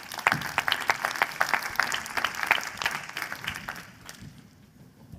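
Audience applauding: many hands clapping together, thinning out and dying away about four seconds in.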